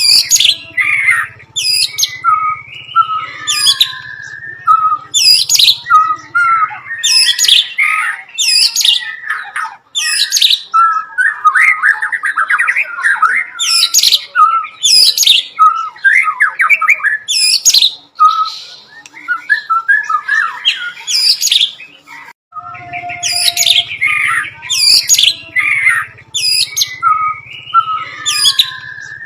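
White-rumped shama singing loudly and without pause, a rapid string of sharp, high notes in which it reels off mimicked bar-winged prinia (ciblek) calls. A low steady hum runs under the song for the first seven seconds and again in the last seven.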